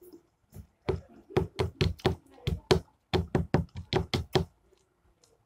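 Metal spoon knocking against a ceramic bowl as halwa is stirred and scooped: a quick run of about fifteen knocks, roughly four a second, stopping about a second before the end.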